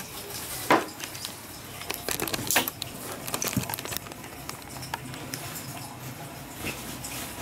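Kitchen handling noises: scattered light clicks and knocks, with a sharper knock about a second in and another about two and a half seconds in.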